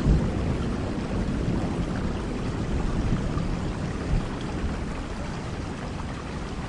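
Steady heavy rain falling, with the low rumble of thunder dying away in the first moments.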